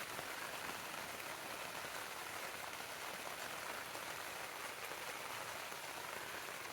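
Steady rain falling on a tent's rainfly, heard from inside the tent.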